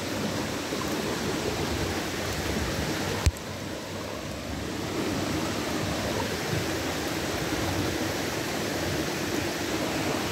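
Floodwater of a swollen creek rushing, a steady wash of noise, with one sharp click a little over three seconds in.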